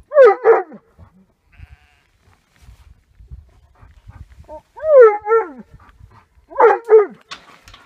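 Sheep bleating three times: short wavering calls that fall in pitch, near the start, about five seconds in, and near the end.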